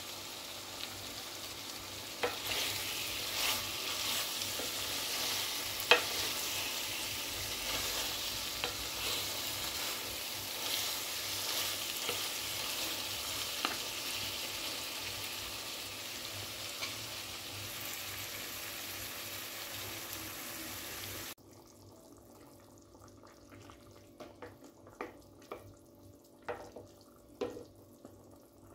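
Masala-coated meat frying and sizzling in a metal pot with a steady hiss and scattered sharp pops and ticks. About 21 seconds in, the sizzle cuts off abruptly and is followed by a quieter stretch of separate knocks and scrapes from a spoon stirring in the pot, which now holds a watery curry gravy.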